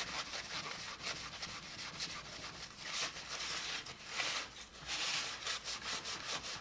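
Hand scrubbing on the hard plastic case of a Beckman digital multimeter with Mr. Clean cleaner: repeated back-and-forth rubbing strokes with a dry, hissy swish, quickening to rapid short strokes near the end.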